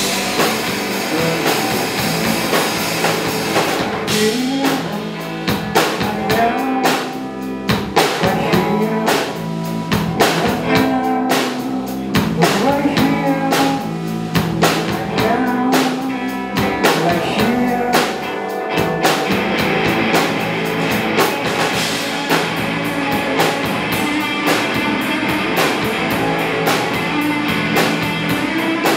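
Live rock band playing: electric guitar, bass guitar and drum kit.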